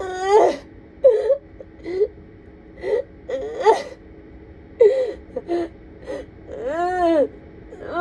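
A woman sobbing hard: short, broken whimpers and gasping breaths, then one long wail that rises and falls near the end.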